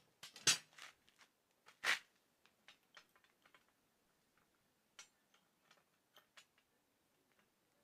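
Light clicks and knocks of a woodworking clamp being handled and fitted onto a freshly glued drawer piece: two louder knocks in the first two seconds, then scattered faint ticks.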